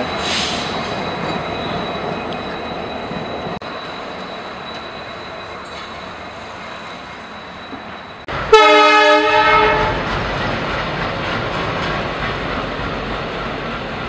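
Passenger coaches of a train rushing past on the track with a steady noise. About eight seconds in, a train horn gives one loud blast of just over a second, then the steady train rumble carries on.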